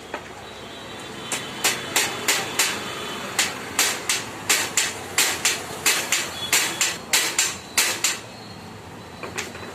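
Hammer striking metal on a bicycle part during repair: a run of about twenty sharp, ringing blows at roughly three a second, then two lighter taps near the end.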